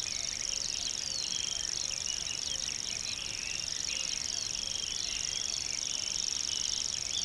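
Common grasshopper warbler singing its reeling song: a steady, high-pitched trill held without a break. Short chirps of other birds sound beneath it.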